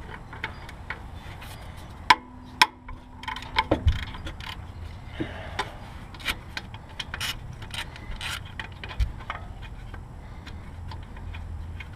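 Hand tools working an alternator mounting bolt on a 2004 Ford Focus 2.3 engine: scattered ratchet-like clicks and small metal knocks. About two seconds in come two sharp metal clinks, the first ringing on for a couple of seconds.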